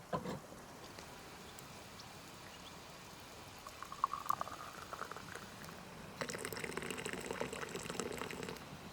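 Tea being poured into a cup in two pours: a short knock at the start, a thin stream for about a second and a half from about four seconds in, then a fuller stream for over two seconds that stops sharply near the end.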